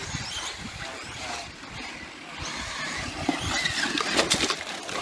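Radio-controlled cars driving on a dirt track: their motors and tyres running over loose dirt and gravel, with a cluster of sharp crackles about four seconds in.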